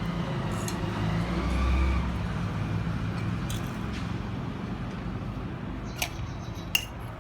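A motor vehicle's engine rumbling, swelling about one and a half seconds in and then easing off. Two sharp clicks come near the end.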